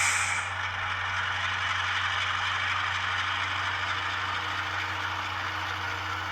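Digital sound of an ES44AC diesel locomotive's engine, played through the small onboard speaker of an H0 scale model, running steadily with the decoder's load simulation switched on. A short hiss sounds right at the start.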